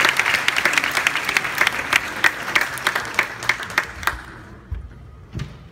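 Audience applauding, the clapping thinning out and dying away about four seconds in. Near the end there are two dull low thuds.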